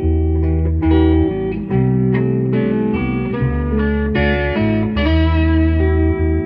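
Electric guitar blues jam in E minor over a looped bass line. The bass is a guitar shifted down an octave by a pitch-shifter pedal. The lead guitar is lightly overdriven by a Tube Screamer Mini into a Vox Valvetronix amp, with new notes picked every fraction of a second.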